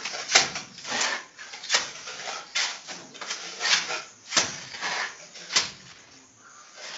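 A plasterer's trowel scraping and knocking in a metal pan of cement mortar, about a stroke a second, as mortar is scooped up for the wall. The strokes trail off near the end.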